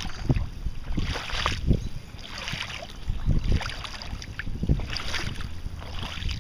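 Wind buffeting the microphone, with irregular swishing footsteps through wet, flooded ground.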